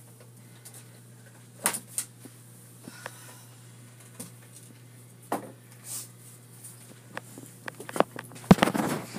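Scattered knocks and clatter of things being handled and moved in a small room, with a louder cluster of bumps near the end, over a steady low hum.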